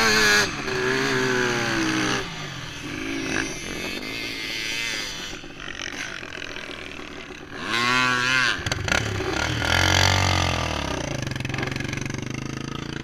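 Dirt bike engine revving up and down in several throttle blips, then settling to a lower, steadier run near the end.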